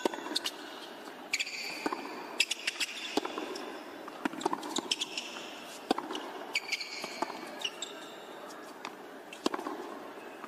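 Tennis rally on a hard court: a ball struck back and forth by racquets, hits a second or so apart, with short high shoe squeaks as the players change direction.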